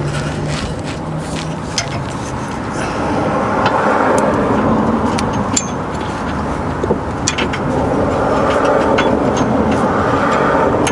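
Road traffic going by, swelling twice, with a few light clicks scattered through.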